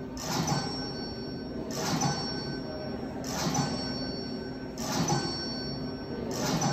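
An electronic whoosh-and-ping sound effect repeating about every second and a half: each time a rush of noise swells up and ends in a bright ringing ping, over a low steady hum.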